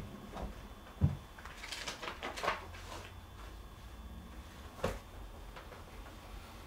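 Faint handling of a leather document folder and its papers: a soft thump about a second in, a short rustle of paper as the folder is opened, and a single sharp click later on.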